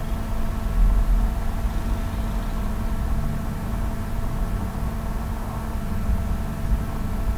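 Steady background hum and low rumble with no distinct events: constant noise on an open microphone.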